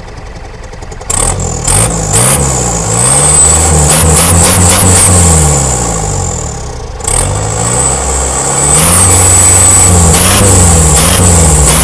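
Mitsubishi Canter drag truck's engine revved repeatedly through its new exhaust: a low idle, then, about a second in, a run of rev blips rising and falling in pitch. The revs drop back briefly a little past halfway, then pick up again in quicker blips toward the end.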